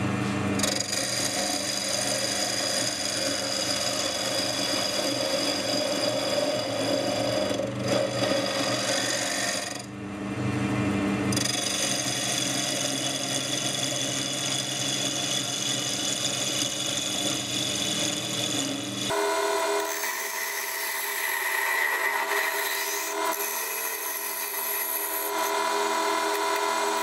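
Wood lathe running with a steady hum while a rasp scrapes against a spinning wooden sphere. The sound dips briefly about ten seconds in, and about two-thirds of the way through the low hum drops away, leaving the rasping.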